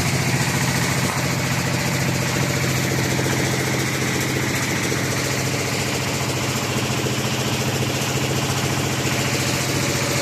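Engine-driven machinery of a well chamber mortar spraying rig running steadily: an even low hum with fine, rapid pulsing, and a hiss over it.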